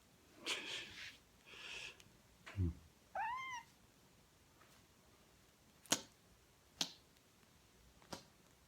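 A young kitten meows once, a short call that rises and then falls, about three seconds in. Before it come two short rustling noises and a brief low falling sound, and later three sharp taps.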